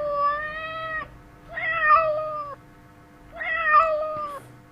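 Domestic cat meowing three times, each meow about a second long with short pauses between.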